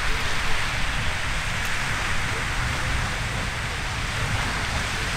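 Riverside Geyser erupting: the steady rushing hiss of its water jet and steam, even and unbroken throughout.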